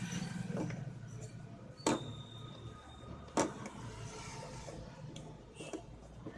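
Two short sharp clicks about a second and a half apart over a steady low hum, as a USB modem is plugged into a USB extension cable.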